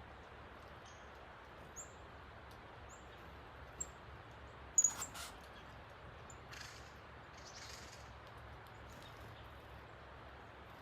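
Rain-swollen creek rushing as a steady hiss, with small birds at a feeder giving short high chirps every second or so; the loudest comes about five seconds in.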